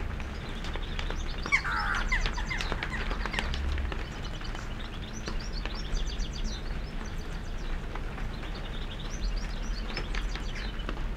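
Small birds chirping and twittering over a steady low rumble, with a louder, lower call about two seconds in.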